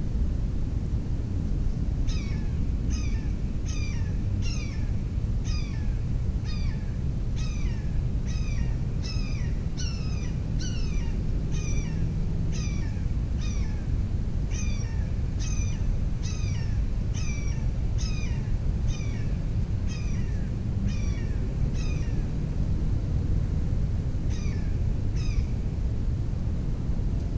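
An animal's sharp call repeated about once a second for some twenty seconds, each call a quick downward-sliding note; after a pause, two more calls come near the end. A steady low rumble runs underneath.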